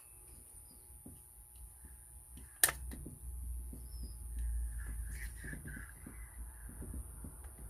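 Small clicks and knocks of handling, with one sharp loud click about two and a half seconds in. In the second half a crow caws several times in the background.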